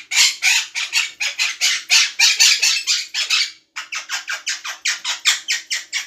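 Quaker parrot giving a rapid run of short, harsh squawks, about four to five a second, with one brief pause a little past halfway.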